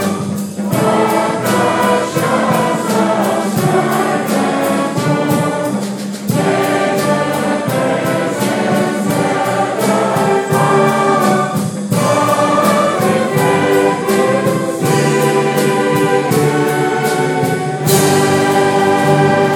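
Students singing together in a hall, accompanied by a school band with brass leading. The music runs in phrases with short breaks about every six seconds, with a crash near the end.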